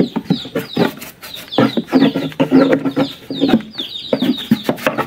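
Chickens clucking repeatedly close by, with a longer pitched call in the middle, mixed with short scraping strokes of a brush and stick on the inside of a wooden beehive box.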